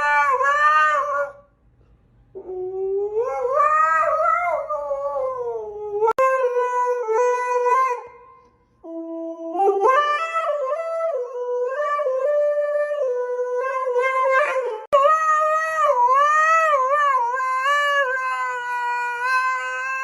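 A dog howling on cue, singing in long drawn-out notes whose pitch slides and wavers, with a few short breaks between howls.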